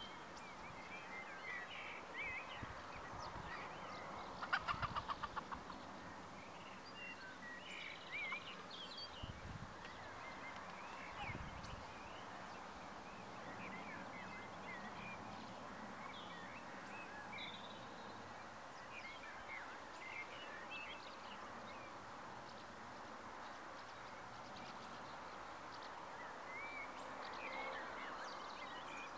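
Outdoor ambience of birds chirping and calling, with a quick run of repeated notes about four to five seconds in as the loudest sound, over a steady faint background noise.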